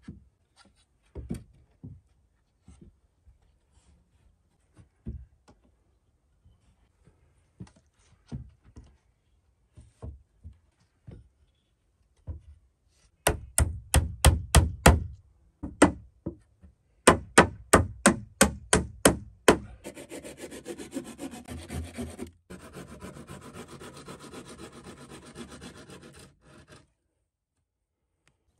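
Loose wooden boards knocking as they are set in place, then two quick runs of hammer blows, about eight each, nailing a board to a wooden wall. After them comes about seven seconds of steady rasping on wood that stops abruptly near the end.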